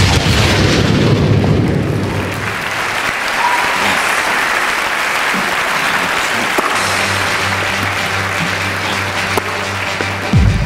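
Audience applauding: a dense, steady clapping. Under it runs a low held musical tone for the first couple of seconds, which comes back at about seven seconds in.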